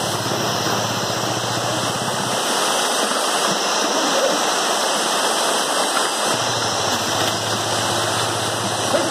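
Steady rush of a shallow stream running over rocks. Under it runs a low, steady hum that stops for a few seconds in the middle.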